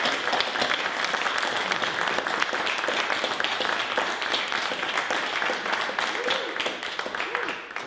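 Audience applauding at the end of a live song: dense clapping with a few voices mixed in, fading out near the end.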